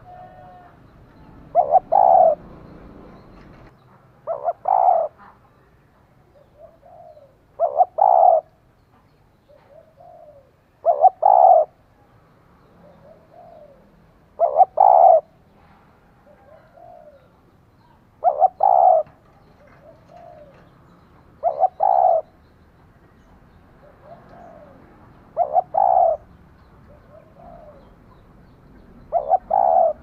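Spotted dove cooing: a low two-part coo, a short note then a longer doubled one, repeated about every three and a half seconds, nine times, with fainter short coos in between.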